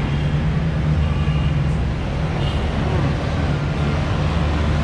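Street traffic: a steady low engine drone from motor vehicles running close by, under a general background of city noise.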